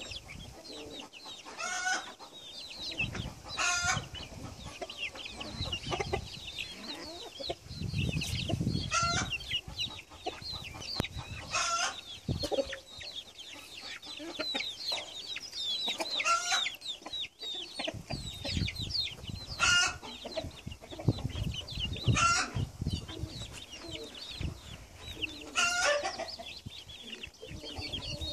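A flock of young chickens peeping continuously in short high chirps, with louder, harsher calls breaking through every few seconds.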